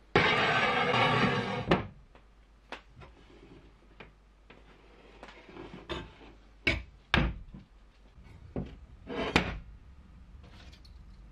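Steel strip scraped across a concrete work surface for about a second and a half, ending in a clank, followed by scattered knocks and a few short, sharp scraping bursts as the metal is handled.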